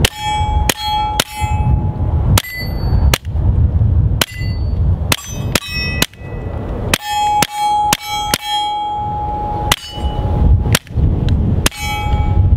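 Suppressed Taurus TX22 .22 LR pistol fired in a string of about sixteen shots at an uneven pace, each muffled shot followed by the ringing clang of a steel target being hit.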